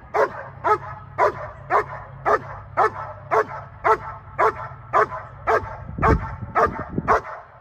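German shepherd barking over and over at an even pace, about two sharp barks a second: demand barking at its handler, wanting to play.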